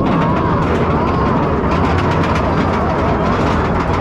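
Bolliger & Mabillard dive coaster train being hauled up its chain lift hill: a steady loud rumble of the lift chain with rapid clicking and a few short squeaks.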